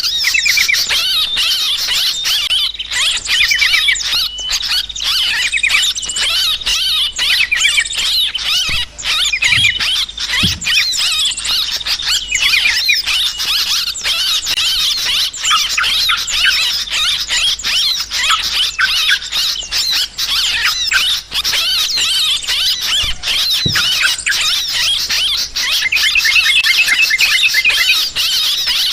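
A flock of yellow-vented bulbuls (trucukan) calling noisily: a dense, unbroken tangle of quick, overlapping chirps and squeaky chattering notes. This is agitated 'ribut' chatter of the kind used to lure birds.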